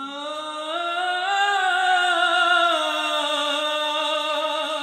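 A male voice singing one long sustained note, with no words. The pitch steps up a little at the start, then wavers slowly and eases down.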